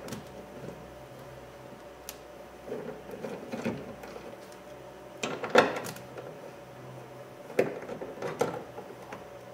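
Short clusters of clicks and metal clinks, three times, from a 10 mm socket and driver working loose the bolts that hold an interior door handle to the door.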